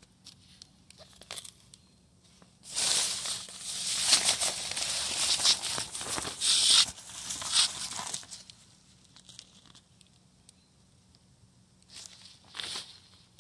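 Hook-and-loop (velcro) strip on a tent's removable floor being pulled apart: a rasping rip about five seconds long, with the floor fabric crinkling, then a shorter rip near the end.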